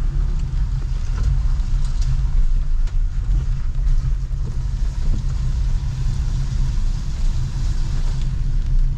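Heavy rain on a street: a steady hiss with a loud, continuous low rumble beneath it and a few sharp ticks of drops.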